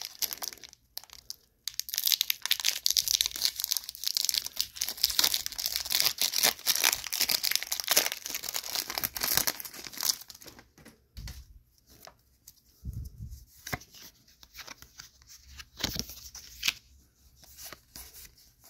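Foil Pokémon booster-pack wrapper crinkling and tearing as it is pulled open by hand, dense for several seconds. Then lighter rustling and clicks as the cards are drawn out of the wrapper and handled.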